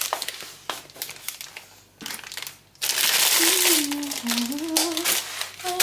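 Crinkly plastic Oreo biscuit packet being handled, crackling on and off and then continuously from about three seconds in. A woman hums a tune over it in the second half.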